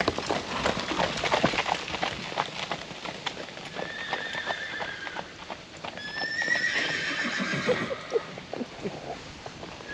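Horses moving about with many quick hoofbeats, then two whinnies, one about four seconds in and another about six seconds in.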